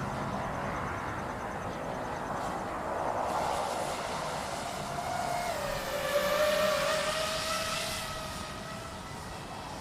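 FPV quadcopter's brushless motors and propellers whining over a rush of air noise; a clear motor tone comes up about five seconds in, dips slightly in pitch and then holds steady.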